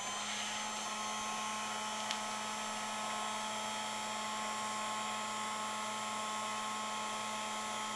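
Craft heat tool switching on and then running steadily, its fan blowing with a constant hum.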